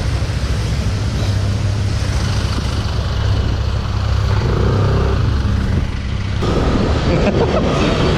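Motor vehicle running with road and traffic noise: a steady low rumble under a noisy haze. A brief steady tone comes in about four seconds in, and the traffic noise gets busier from about six and a half seconds.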